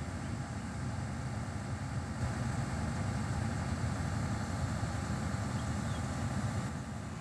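Kobelco crawler excavator's diesel engine idling steadily while the machine stands parked.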